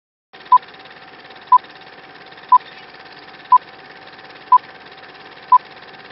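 Film leader countdown effect: a short, loud beep once every second, six in all, over a steady film hiss with a faint steady hum underneath.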